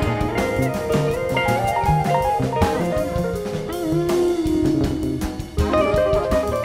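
Live rock band playing an instrumental jam: electric guitars playing melodic lead lines over a drum kit.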